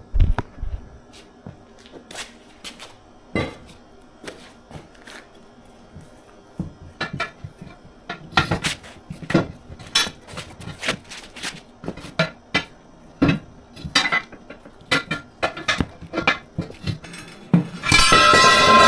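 Steel tire irons and a pry bar clanking and clinking against a steel wheel rim as a trailer tire is pried off the rim by hand. The knocks are sparse at first and come thick and fast from about halfway. Music starts near the end.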